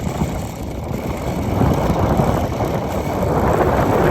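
Strong wind gust rushing and buffeting the microphone, growing louder from about a second and a half in, with a wind-spun fan speeding up as the gust builds.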